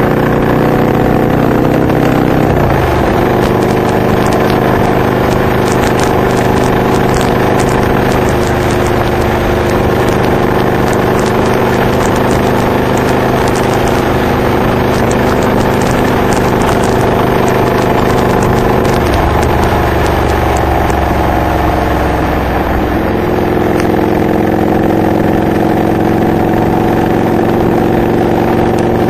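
Honda VTX 1300R's V-twin engine running steadily under way through Hard Krome K2 exhausts fitted with Michael's Resonator baffles. The exhaust note changes pitch a few times: about two and a half seconds in, and again near nineteen and twenty-three seconds.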